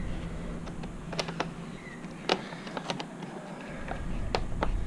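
Scattered light clicks and taps, about ten spread unevenly over a few seconds, from a screwdriver working the Phillips-head screws in a motorcycle's plastic under-seat panel.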